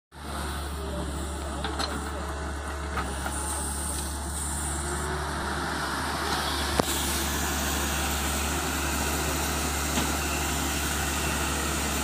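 Tata Hitachi hydraulic crawler excavator's diesel engine running steadily under digging load, with a few sharp knocks, the loudest about seven seconds in.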